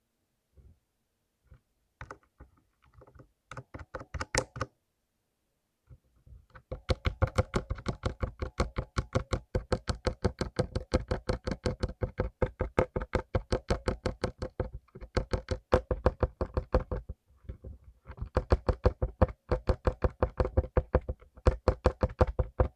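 Mechanical keyboard with lubed blue clicky switches being typed on. A few scattered keystrokes come first, then fast, steady typing starts about six seconds in, with a few short pauses.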